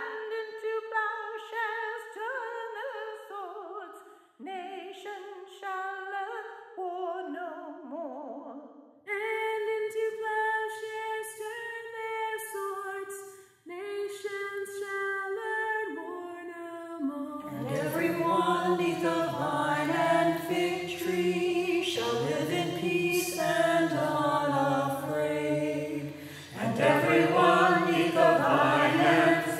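A cappella singing of a traditional Hebrew melody: solo women's voices take the line in turn, then a little over halfway through a mixed choir comes in with low voices and harmony, louder and fuller.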